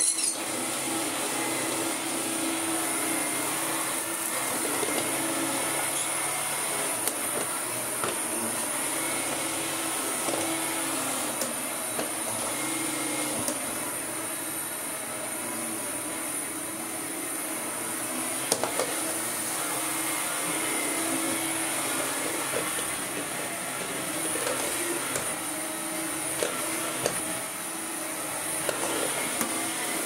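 Makita DVC560 cordless upright vacuum cleaner, with a brushed motor on two 18 V batteries and its dust bag a bit full, running steadily with a high whine as it is pushed back and forth over a rug and a laminate floor. Occasional faint clicks sound over it.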